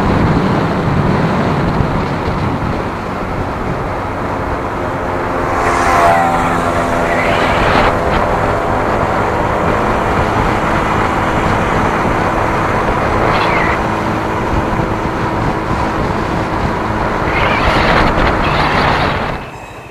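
Onboard sound of a vehicle cruising on a highway: steady engine hum mixed with road and wind noise, swelling a few times. It cuts off abruptly near the end.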